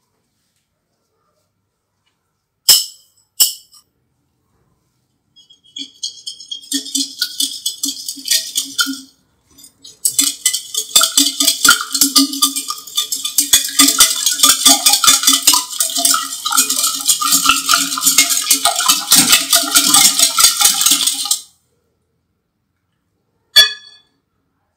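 A hand whisk beating a mixture in a bowl: a fast, even rattle of strokes that stops briefly and starts again for a longer spell. There are two sharp taps before it and one after.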